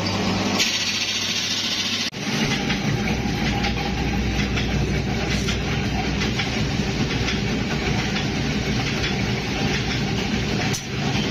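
A machine running steadily, with a low hum under a dense, fine clattering rattle. An abrupt cut about two seconds in breaks it briefly.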